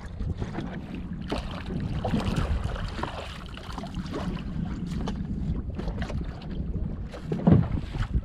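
Wind buffeting the microphone on a fishing boat at sea, over a steady low rumble, with scattered knocks and one loud thump near the end.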